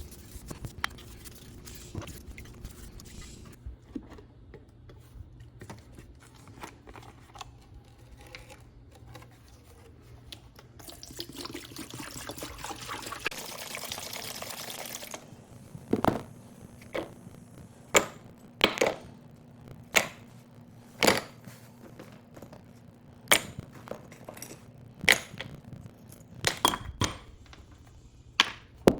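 Liquid pouring and trickling, with a stretch of loud hiss midway, then a run of sharp clinks or knocks about every one to two seconds.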